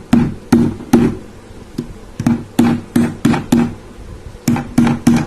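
Sharp knocks on the small plastic-housed swing louver motor of an air cooler as its cap is worked into place and tightened. The knocks come about three a second in three short runs, each with a brief low ring.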